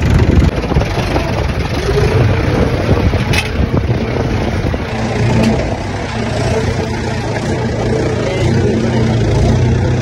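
Diesel engine noise from a JCB 3DX backhoe loader digging and loading rock into a tractor trolley, with a single sharp knock about three seconds in. From about halfway, a steadier low engine hum takes over.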